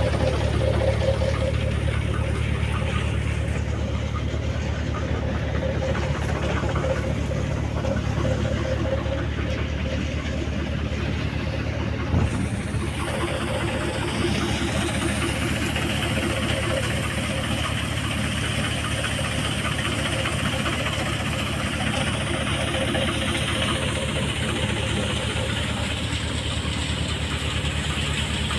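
An engine running steadily at a constant speed, with one short knock about twelve seconds in.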